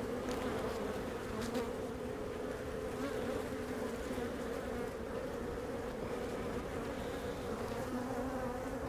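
A mass of honey bees buzzing around an opened hive: a steady, even hum.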